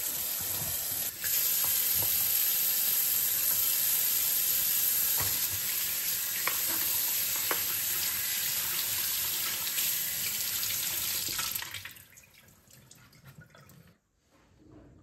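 Kitchen tap running into a sink, the stream splashing over phones and the ice frozen around them as they are rinsed by hand to thaw it off. The water stops about twelve seconds in, leaving a few faint clicks of the phones being handled.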